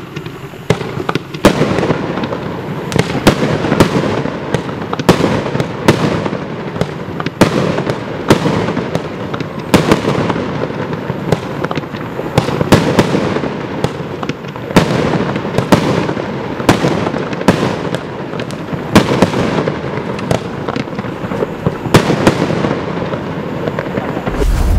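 Bonfireworks 'Neon Ghost' firework cake firing its shots one after another, about one or two sharp bangs a second over a steady crackle, until it stops suddenly near the end.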